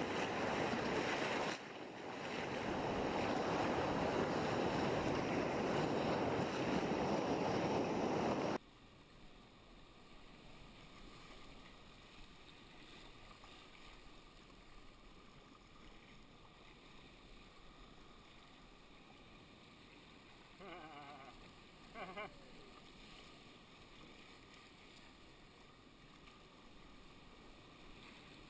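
Loud rush of turbulent white water churning around a sea kayak, cutting off abruptly about eight and a half seconds in to a much fainter, steady wash of choppy sea. Two faint, brief calls come about three-quarters of the way through.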